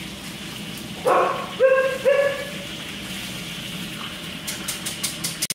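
Husky giving three short, high yelping calls in quick succession, followed near the end by a run of light clicks.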